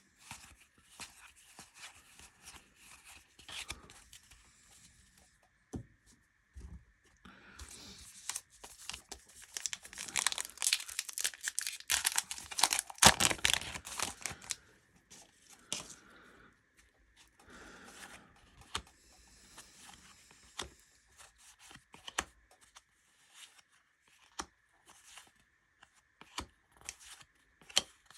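A trading-card pack wrapper being torn open and crinkled, with card handling in between. The tearing and crinkling are densest and loudest in the middle, then give way to sparser rustles and clicks.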